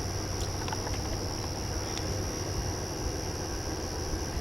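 Crickets trilling in a steady, unbroken high-pitched chorus over a low constant rumble.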